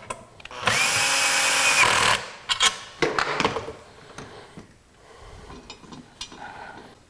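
A power drill-driver runs for about a second and a half, steady in pitch, driving a screw back into the scroll saw's case. It is followed by a few sharp clicks and quieter handling of the parts.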